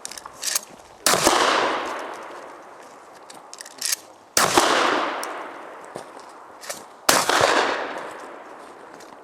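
Three 12-gauge pump-action shotgun shots about three seconds apart, each echoing away. Shorter mechanical clacks come between them as the pump is worked.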